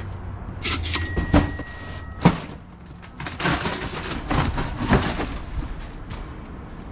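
Cardboard boxes being pulled about and torn open inside a plywood-lined cargo trailer: knocks, a loud thump a little past two seconds in, and scraping and ripping of cardboard. A short, high ringing tone sounds about a second in.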